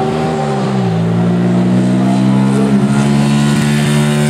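Classic 500 cc racing motorcycle accelerating hard as it approaches and passes, getting louder. Its engine pitch drops sharply about a second in and again near the end as it shifts up a gear, then holds under full throttle.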